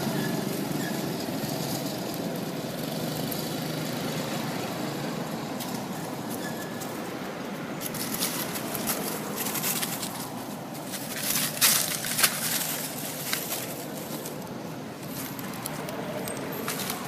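Dry fallen leaves rustling and crackling under shifting monkeys, in a run of sharp crackles a little past halfway, over a steady outdoor background hiss.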